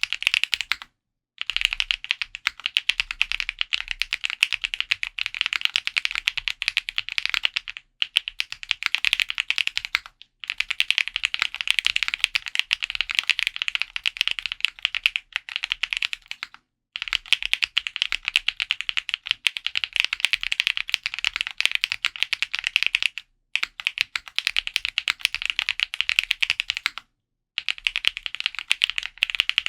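Typing on a custom mechanical keyboard with lubed Kailh Box Blueberry Cream Pro linear switches on a POM plate, with GMK Shoko keycaps and foam-dampened case: fast, dense runs of keystrokes broken by brief pauses every few seconds.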